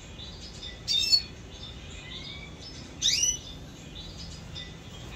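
Caged red siskins chirping. Soft twittering runs throughout, broken by two loud bursts of sharp, downward-sweeping chirps about a second and three seconds in.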